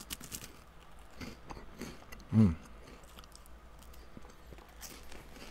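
A person chewing a bite of crispy wafer with a whipped chocolate filling, with faint crunching and small mouth clicks. Midway there is a short hum of the voice.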